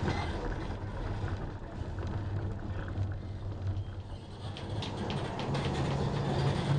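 Tram running along the street: a steady low motor hum over rolling noise, with a few light rattles in the second half.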